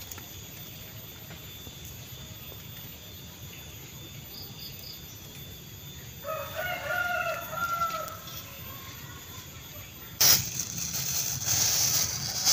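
A rooster crows once about halfway through, one call lasting about two seconds. From about ten seconds in, a thin plastic bag rustles as it is handled, the loudest sound.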